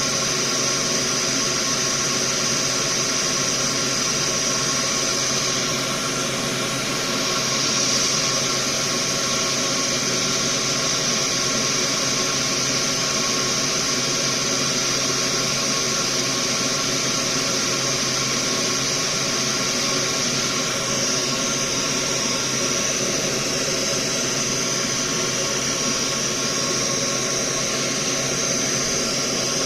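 Small electric fan running steadily: an even whirring hiss with a few faint, steady hum tones, unchanging throughout.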